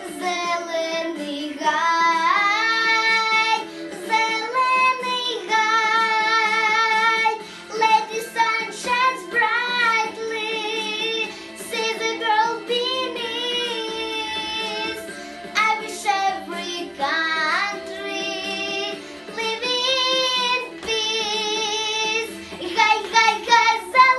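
A young girl singing a pop song over a recorded backing track, holding long notes with a wavering vibrato.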